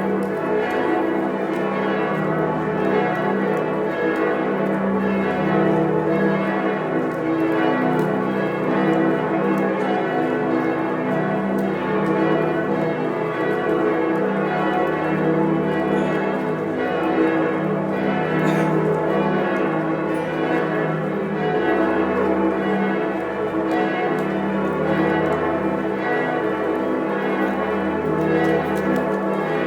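Many church bells ringing together in a continuous full peal, their strokes overlapping into a dense, steady wash of tones.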